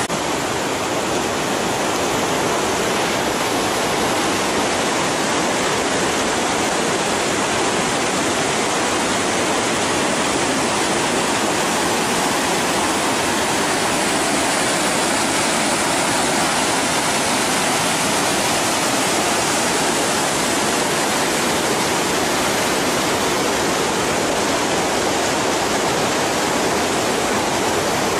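Rushing water of a waterfall cascading over granite into a pool, a steady, loud rush.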